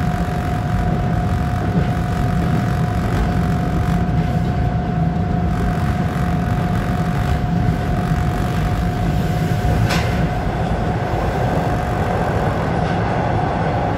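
Bombardier T1 subway train running at speed, heard from inside the lead car: a steady rumble of steel wheels on rail with a constant whine over it. One short sharp click about ten seconds in.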